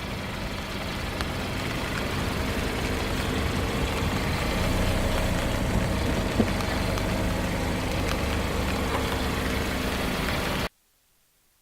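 Car engine running steadily, with a single sharp snap about six and a half seconds in; the sound cuts off suddenly near the end.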